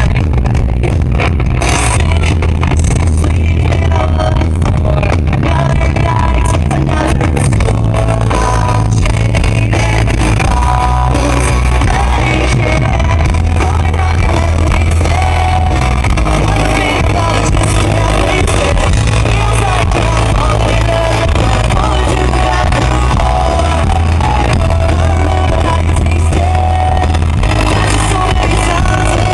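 Rock band playing a song live at full volume, with a singer over electric guitars, bass and drums, recorded from the crowd with a heavy, overloaded low end.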